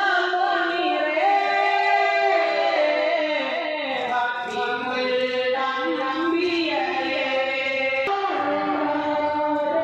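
Devotional Meelad song (madh) sung by a man into a hand-held microphone and amplified, in long, wavering, ornamented notes.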